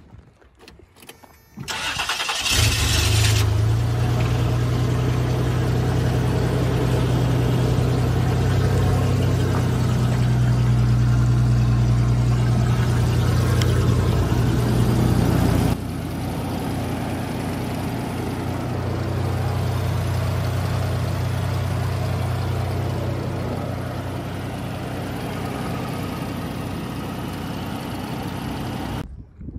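A 1991 Toyota 4Runner's 3.0-litre V6 is cranked by the starter and catches about two seconds in, then idles steadily.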